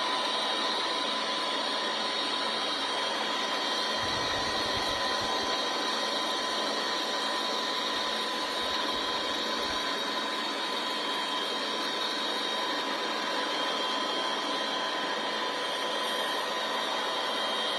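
Helicopter engine running with a steady whine and rushing hiss, holding at the same level with a few high steady tones in it.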